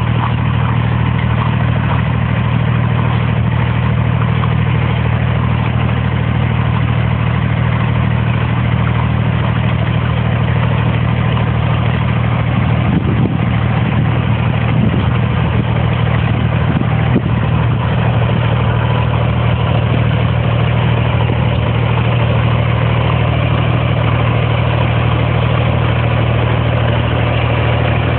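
Engine running steadily at a constant speed, a low, even hum that holds without revving up or down.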